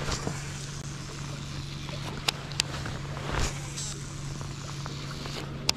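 Steady low hum of a boat motor running under a noisy background, with a few sharp clicks. The hum cuts off just before the end.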